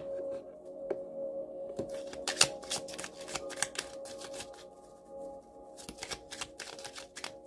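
A deck of cards being shuffled by hand: quick runs of flicking, riffling card sounds in two spells, the second near the end. Soft ambient music with a held tone plays underneath and fades out about halfway through.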